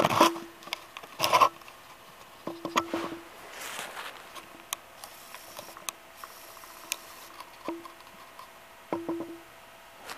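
Footsteps and handling noise: scattered clicks and knocks with a few short squeaks, in an irregular pattern.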